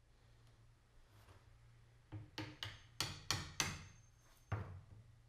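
A small hammer tapping a wooden tenon down into a deep mortise cut through the arch into the cross support: six quick sharp taps starting about two seconds in, then one more tap about a second later.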